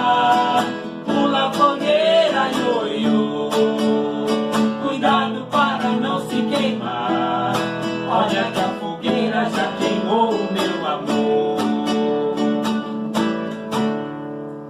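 Acoustic guitar music, plucked and strummed, carrying a melody line throughout.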